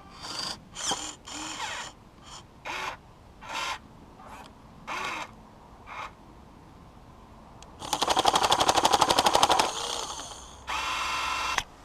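Huina 1580 V4 RC excavator's electric motors whining in a string of short bursts, then its jackhammer attachment chattering loudly with rapid hammer blows for about two seconds as it chips at ice, and another motor whine near the end.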